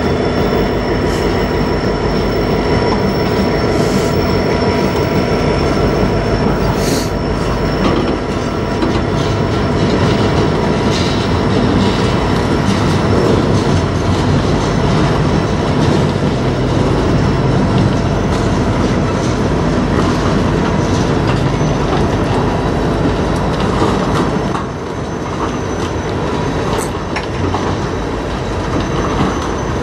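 Freight cars of a mixed freight train rolling past: a steady rumble of steel wheels on the rails, with a thin steady wheel squeal over it and a few brief sharp squeaks. The rumble eases a little about 25 seconds in.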